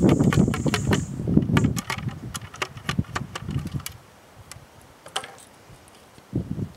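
Ramrod being driven down the barrel of a 12-gauge muzzleloading shotgun to seat the cards on the powder charge: a quick run of clicks and knocks for about four seconds, then quieter, with a couple of single knocks near the end as the ramrod comes out.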